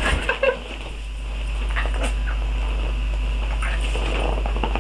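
Stifled, squeaky giggling from a girl trying to hold back her laughter, a few short breathy bursts near the start and fainter ones after, over a steady low electrical hum.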